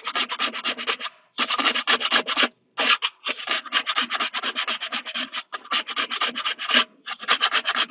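Hand file scraping back and forth over a 3D-printed plastic part in runs of quick strokes with short pauses, taking a printed ridge off the surface.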